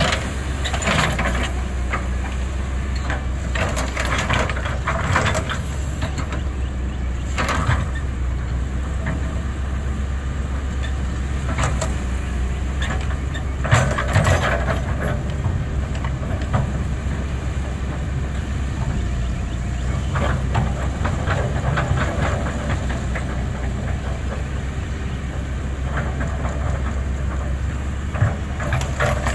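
Caterpillar 320 excavator's diesel engine running steadily while it digs, with scraping and knocking from the bucket and dirt every few seconds, loudest about halfway through.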